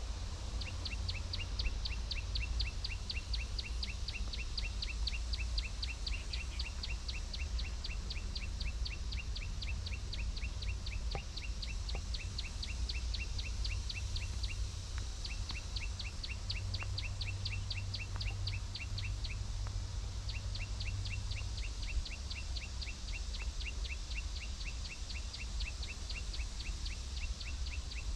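Rapid, evenly spaced high chirps, about six a second, keep going with a few short breaks, over a low steady rumble.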